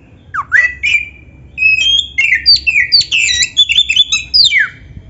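Black-bellied Oriental magpie-robin (kacer) singing: a few quick rising whistled swoops, then about three seconds of rapid, varied whistles and glides, ending on a falling note.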